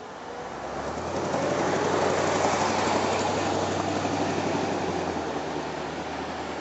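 Fire engine's diesel engine running up to a raised speed and holding there, with a rushing noise over it. The sound builds over the first two seconds and eases off a little about five seconds in.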